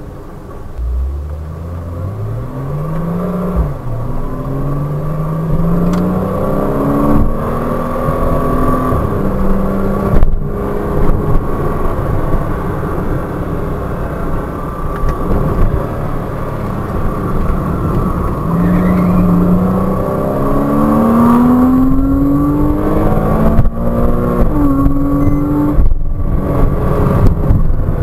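Porsche Cayman 987.2's 2.9-litre flat-six heard from inside the cabin, pulling hard up a winding road: the revs climb in several long rises and drop back between them as the driver lifts or shifts, over steady road noise.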